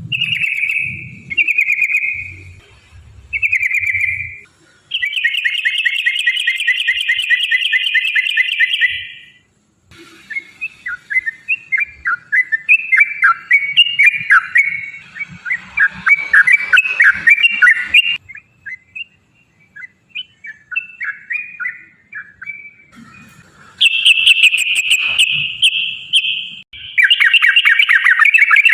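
Sooty-headed bulbul (trucukan) singing: a few short whistled phrases, then a long rapid rolling trill of about four seconds, a run of varied chattering notes, and more fast trills near the end.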